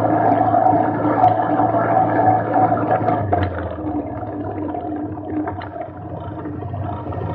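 Quad-bike engine running steadily during a ride; its note drops about three seconds in, and it grows quieter before picking up again near the end.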